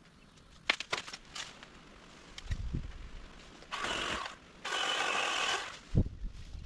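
Tree-trimming work on overhanging limbs: a few sharp clicks, then two longer rasping scrapes that are the loudest sounds, and a heavy thump near the end.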